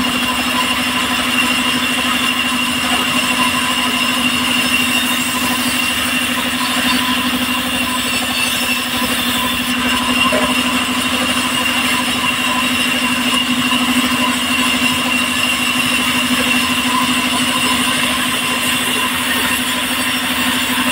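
Engine-driven circular saw bench running steadily as timber strips are fed through it: a constant engine hum with a steady high whine from the spinning blade.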